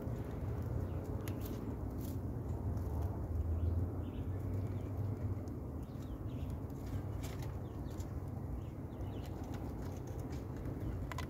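Faint scattered clicks and rustles of small animals moving and nibbling in hay, over a steady low hum.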